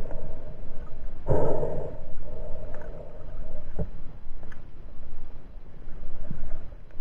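Muffled underwater water noise heard through a waterproof camera housing as a diver handles a speared fish: a surge of rushing water about a second in, a short hum after it, and a couple of sharp knocks near the middle.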